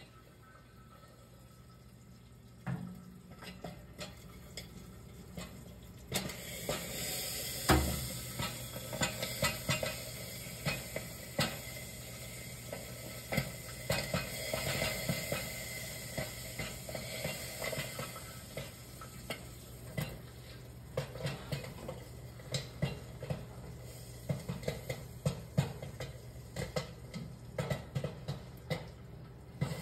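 Olde Midway popcorn machine with its 6-ounce kettle running. A steady low hum starts about three seconds in, and sizzling joins a few seconds later, with a busy scatter of small pops and clicks that grows denser as the kettle heats.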